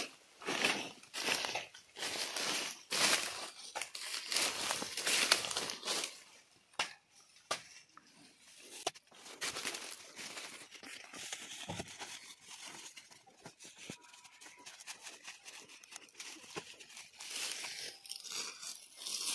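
Dry cut sugarcane leaves and stalks crunching and crackling: a run of loud crunches about two a second for the first six seconds, then fainter crackling with a few sharp knocks.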